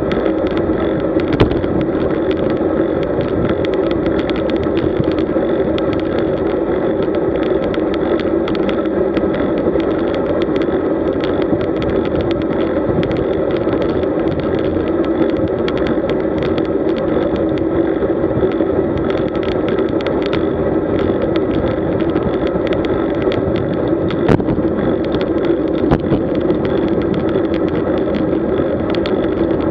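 Steady wind noise on the microphone and road noise from a road bike moving along, with frequent small clicks and knocks.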